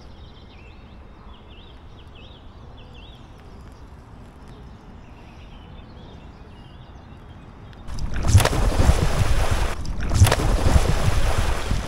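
Small birds chirping faintly over quiet outdoor background, then about eight seconds in a loud rushing noise starts suddenly, dipping briefly about two seconds later before carrying on.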